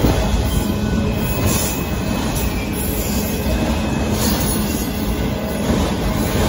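Freight train of autorack cars rolling past, with the steady noise of wheels on rails and a steady low tone throughout.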